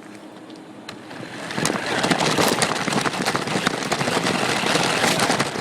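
Fireworks crackling: a dense, rapid run of many small pops that starts about a second and a half in and stays loud until near the end.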